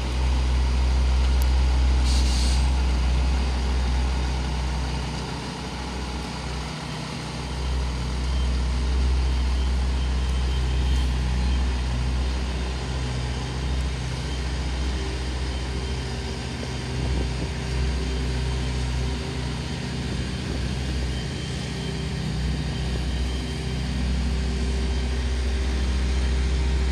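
Volvo FH750's 16-litre straight-six diesel running at low revs as the truck manoeuvres slowly, with a short hiss of air about two seconds in.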